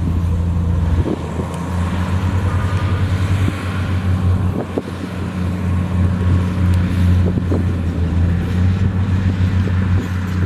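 Heavy diesel engine of earthmoving equipment running steadily with a deep, even throb, with a few faint knocks over it.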